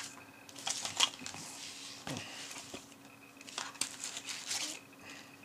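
Paper and cardboard rustling and crinkling as hands handle a leaflet and rummage in a small cardboard box, with a few light knocks.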